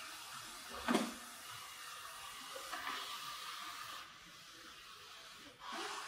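Ecovacs Deebot X2 Omni robot vacuum running as it drives across a tile floor, a steady whirring hiss. There is a brief louder whoosh about a second in, and the hiss drops away for a moment before returning near the end.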